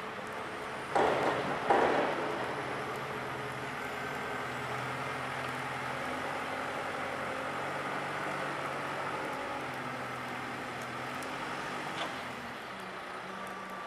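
JCB Loadall 541-70 telehandler's diesel engine running steadily as the machine crowds its bucket into a sand pile and lifts the boom. Two loud bursts of noise come about a second in.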